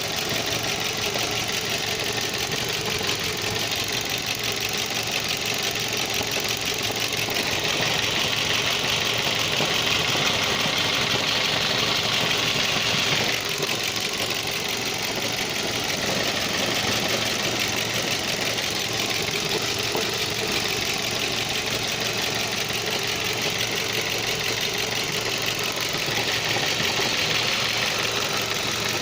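Ford Focus II 2.0 engine running steadily, with an unexplained extra noise in it that the owner cannot identify. A higher whirring hiss rises over it about a quarter of the way in, drops away suddenly a few seconds later, and comes back near the end.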